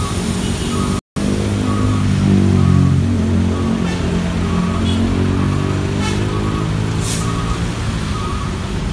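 Mercedes-Benz OH 1526 bus's diesel engine running close by, its pitch sagging a little and then holding steady. Alongside it, a short electronic beep repeats about every three quarters of a second, and a brief hiss of air comes near the end.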